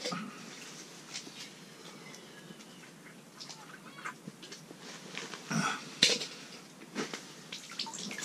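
Scattered rustling and sharp clicks, loudest a little past the middle, from handling an ice-fishing rod and gear.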